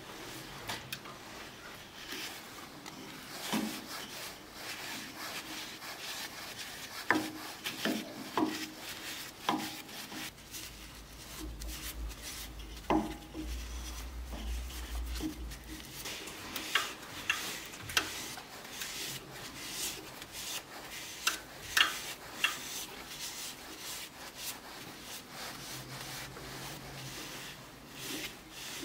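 A cloth rubbing over a turned silverberry-wood goblet as tung oil is wiped on, with scattered light wooden taps and clicks. A low hum runs for a few seconds around the middle.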